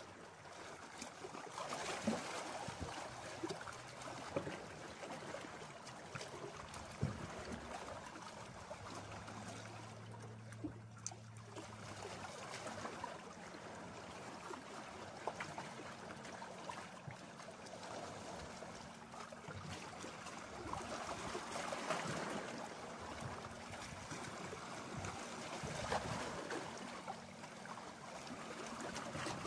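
Small sea waves lapping and washing over shoreline rocks, swelling into louder splashes every few seconds. Under it a faint steady low hum, with a short low drone in the middle.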